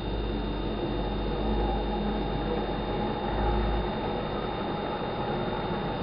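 A snowplow pickup truck's engine running as a steady low rumble with a hiss over it. The deepest rumble drops away about four seconds in, as the truck pulls away.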